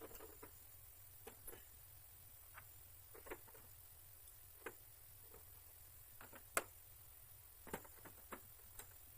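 Scattered light clicks and taps of tools and small parts being handled during motorcycle disassembly, over a near-silent room. The loudest click comes about six and a half seconds in.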